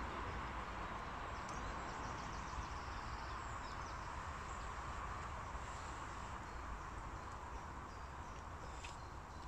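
Steady low hiss and rumble of background noise, with a few faint ticks.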